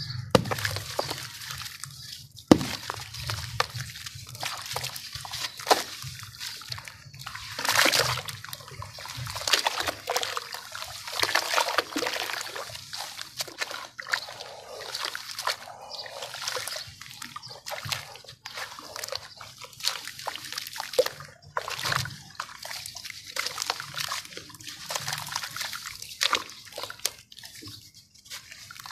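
Hands squeezing and crumbling lumps of sand and cement in a basin of water: wet sloshing and splashing with gritty crumbling and pattering as pieces fall back into the water. One sharp knock about two and a half seconds in.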